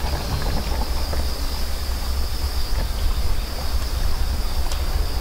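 Wind buffeting the microphone in a heavy, uneven rumble, with a steady high-pitched shrill trill, like insects, above it.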